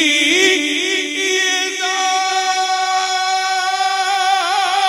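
A man singing a naat (Urdu devotional song) into a microphone, drawing out one syllable in a long ornamented phrase that wavers up and down, then holds a single steady note for about two seconds before wavering again.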